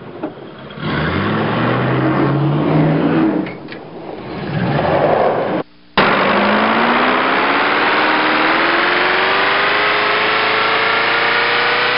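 Car engine revving and accelerating, its pitch climbing in steps. After a brief cut, it carries on with a long, steady rise in pitch as the car builds speed.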